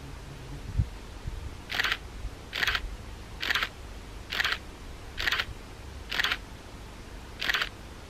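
SLR camera shutter firing seven times at an even pace, about once a second, as a focus stack of about seven frames is shot. A soft thump comes about a second in, before the first shot.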